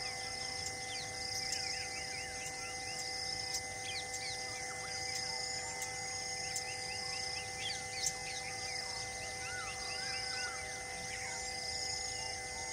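Wild outdoor ambience of insects and birds: a steady high insect drone with a pulsing call repeating about every second and a half, and many quick bird chirps throughout. Steady humming tones run underneath, with a few faint clicks.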